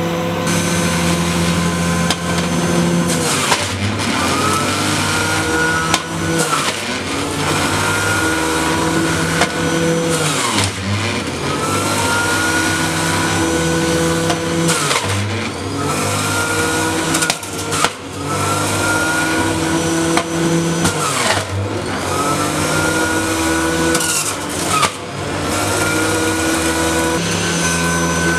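Electric juicer motor running, its whine dropping in pitch each time a piece of peeled sweet lime is pushed down the chute and rising back as the fruit is shredded. This happens about a dozen times, roughly every two seconds.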